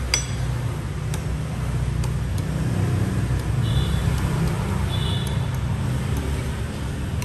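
Steady low rumble of road traffic, with a few light clinks of a metal spoon against a ceramic porridge bowl, the first ringing briefly.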